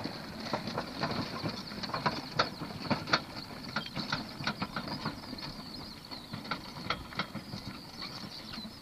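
Wheels and footsteps crunching and rattling on a gravel track: a string of irregular clicks and knocks.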